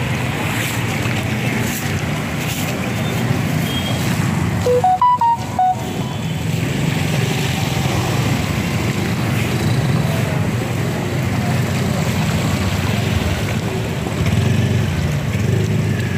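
Steady street noise of motorbike and scooter traffic. About five seconds in comes a short tune of stepped electronic beeps rising and then falling.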